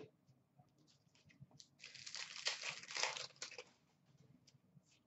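A hockey-card pack wrapper crinkling and tearing for about two seconds, starting about two seconds in, with faint ticks of cards being handled either side of it.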